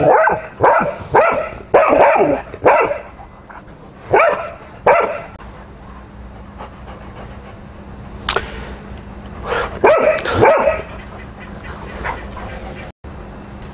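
A dog barking repeatedly in short barks: a quick run of barks over the first three seconds, two more around four to five seconds in, then another cluster about ten seconds in.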